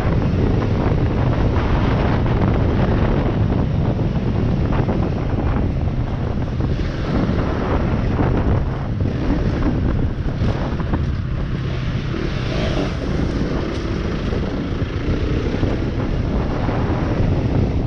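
Wind buffeting the microphone on a moving motorcycle, with the bike's engine running steadily underneath.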